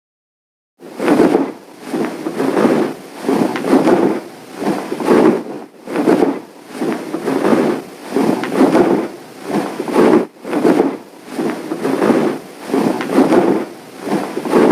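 Dragon sound effect: a rough, noisy whoosh repeated about once a second, starting just under a second in and cutting off abruptly.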